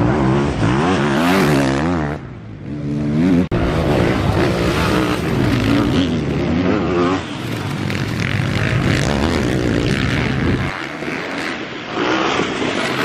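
Motocross race bikes running on the track, their engines revving up and down repeatedly through gear changes as they race past. The sound breaks off sharply for an instant about three and a half seconds in.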